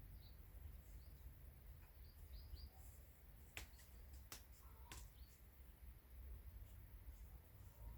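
Near silence with a faint low background hum, a few faint short high chirps from birds, and three faint sharp clicks in the middle, about two thirds of a second apart.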